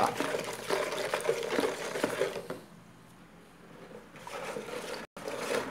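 Wooden spoon stirring water with dissolved yeast and sugar in a plastic bowl: liquid sloshing and the spoon scraping and knocking against the bowl, with a brief pause about two and a half seconds in.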